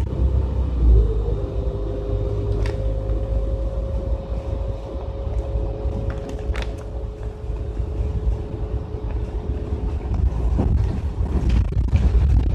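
City bus running, heard from inside the cabin: a steady low engine rumble with a constant whine over it. A few short clicks and rattles come through, busier near the end.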